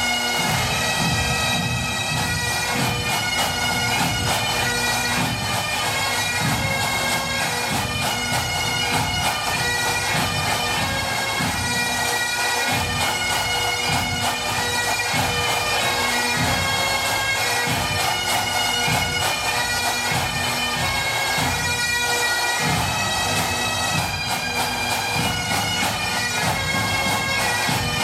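Pipe band playing: Great Highland bagpipes sound a tune over their steady drones, with drums beating low underneath.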